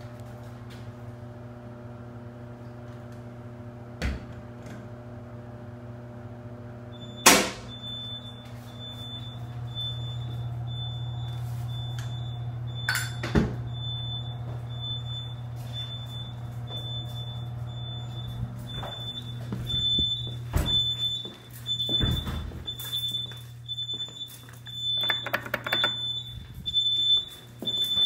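A fire alarm sounder goes off about seven seconds in with a sharp click, then a high-pitched beeping that pulses rapidly and keeps going: the alarm for a tripped elevator machine-room smoke detector. It sounds over a steady electrical hum, and footsteps and handling knocks follow in the second half.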